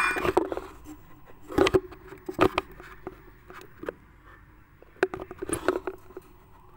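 Scattered knocks, clicks and scrapes from handling a plastic blender jar and its ingredients on a kitchen counter, with the blender motor not running.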